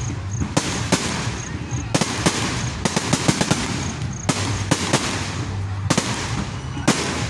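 Fireworks display: aerial shells bursting in a rapid, irregular series of sharp bangs, several clearly louder than the rest, over steady crackling.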